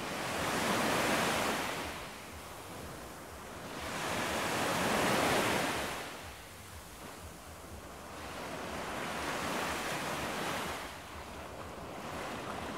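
Ocean surf: waves washing in and drawing back, a swell of rushing noise about every four seconds.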